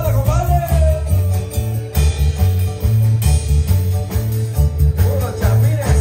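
Live band music: a heavy, pulsing bass and drum beat under keyboard, with a melody line that drops out about half a second in and comes back near the end.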